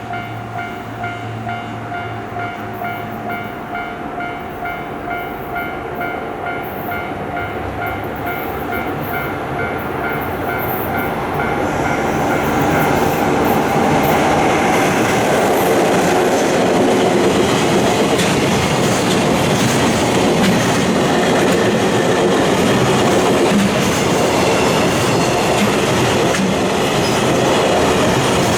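Japanese level-crossing warning bell ringing in steady repeated dings, about two a second. A train approaches and passes over the crossing, its running noise and wheel clatter growing loud from about twelve seconds in and covering the bell.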